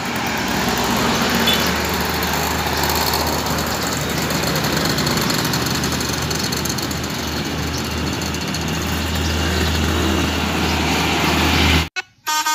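Road traffic going by: the engines and tyre noise of passing cars and a motorcycle, with a steady low rumble. Near the end it cuts off suddenly and gives way to a pitched horn sound in short, changing tones.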